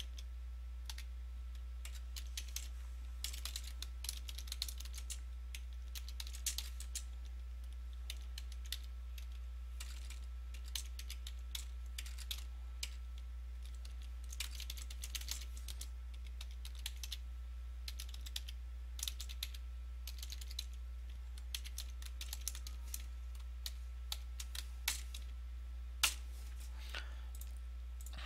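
Typing on a computer keyboard: irregular runs of keystrokes with short pauses, one key struck harder near the end, over a steady low electrical hum.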